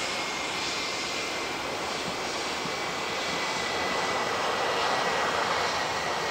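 Jet airliner engines running at taxi power: a steady rushing noise with a thin, high, even whine through it, growing slightly louder in the second half.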